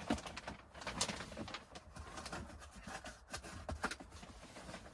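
Faint scattered clicks and rustles of hands handling seed trays and grow-light fittings on a potting bench.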